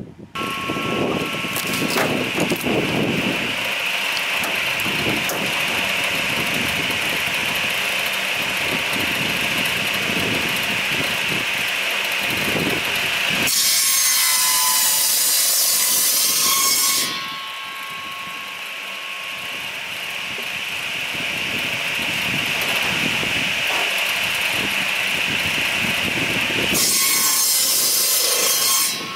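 Electric Maxkapen firewood saw starting up and running with a steady whine, then cutting through a log twice, each cut a louder stretch of sawing lasting a few seconds, about halfway through and near the end.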